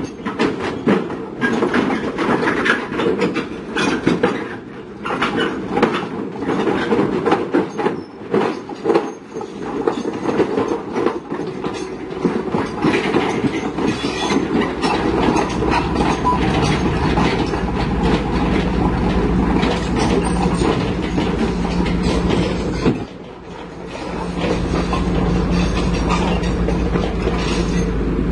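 Heavy vehicle running with a loud, rapid, irregular metallic clatter and rattle. A steady low engine hum grows stronger in the second half, with a brief dip a little over three-quarters of the way through.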